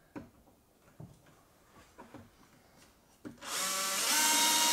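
Handheld power drill with a large-diameter bit boring holes through a bookcase's back panel: a few light knocks as the bit is set against the panel, then about three seconds in the drill starts with a loud, steady whine over the rasp of the cut.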